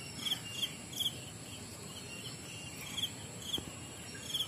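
Insects chirping: short high chirps repeating at uneven intervals, about two a second, over a faint steady high buzz.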